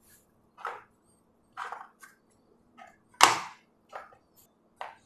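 Yellow plastic Play-Doh mould and clay being handled on a wooden table: about half a dozen short knocks and scrapes, the loudest a little after three seconds in.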